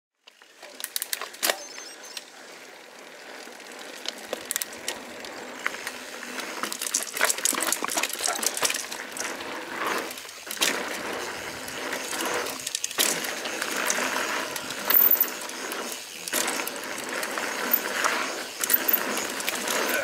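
Santa Cruz 5010 mountain bike rolling along a dirt singletrack: tyre noise on the trail with a constant run of sharp clicks and rattles from the bike as it goes over bumps, getting louder as speed builds.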